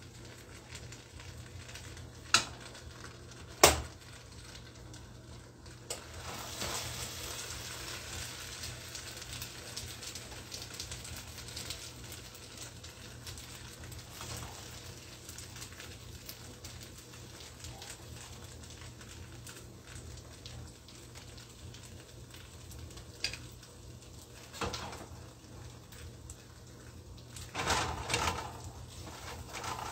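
Red plastic spaghetti server scraping and knocking against a nonstick pot and a ceramic plate as spaghetti is dished out, under a low steady hiss. Two sharp knocks come about two and four seconds in, and a cluster of knocks and scrapes comes near the end.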